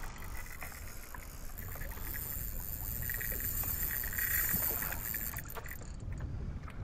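Steady wind and water noise on an open fishing boat: a low rumble with a faint hiss.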